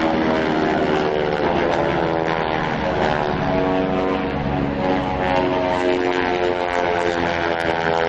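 Radial-engine North American T-6 Texan propeller aircraft flying a display pass, giving a loud, steady engine drone whose pitch drifts slowly up and down.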